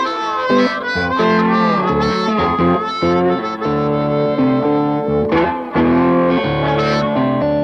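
Delta blues music: guitar with harmonica playing bent, gliding notes over it.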